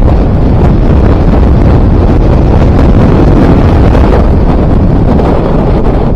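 Wind buffeting the microphone of a KTM RC 200 under way, over the running of its single-cylinder engine. The noise eases a little near the end.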